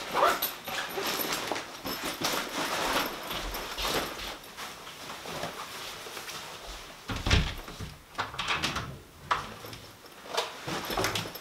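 Rustling and handling of a backpack and clothing as they are pulled on, in a series of irregular shuffles and knocks, with one heavy thump about seven seconds in.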